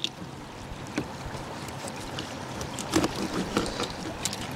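Steady open-air wind and water noise, with a few sharp clicks spread through it.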